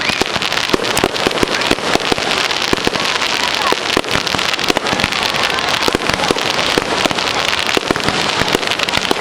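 Fireworks going off: a dense, unbroken run of sharp bangs and crackles.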